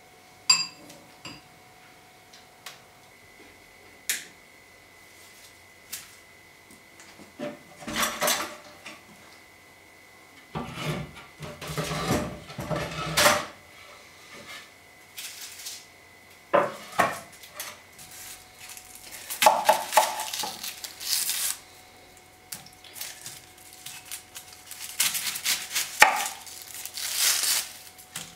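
Kitchen handling sounds at irregular moments: a spoon clinking in a ceramic bowl in the first second or so, then the clatter of dishes and utensils, and food being handled on a wooden board near the end.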